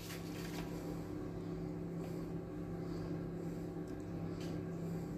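A steady low hum, like a running appliance or fan, with a few faint soft handling sounds over it.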